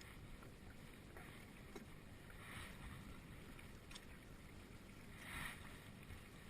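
Near silence: faint wind rumble and water sounds at the water's edge, with two soft splashing swishes, the second one near the end the louder, and a small click between them.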